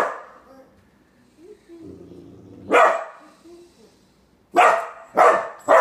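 Rottweiler puppy barking: a single bark about three seconds in, then three quick barks near the end.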